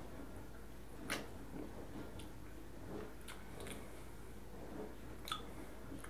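Faint mouth sounds of a man sipping from a drink can and tasting: a few soft lip and tongue smacks and clicks, spread apart, over a low steady hum.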